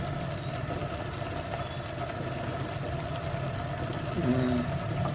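A steady low mechanical hum, like a motor running, with a brief short voiced sound about four seconds in.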